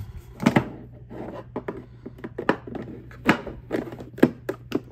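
A string of irregular sharp clicks and knocks as boxed makeup palettes and a clear plastic drawer are handled and slid into a stacking drawer organizer.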